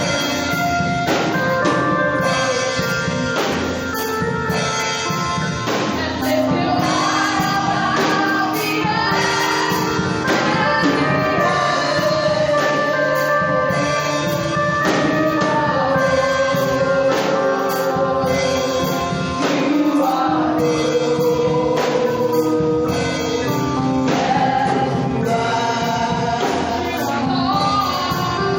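Gospel praise music: a choir singing over band accompaniment with a steady percussive beat.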